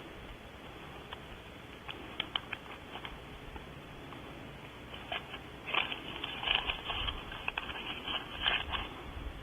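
Close, scratchy rubbing and scattered clicks of a camera lens being wiped and the camera handled, heard right at the microphone; the scratching grows busier and louder about five seconds in.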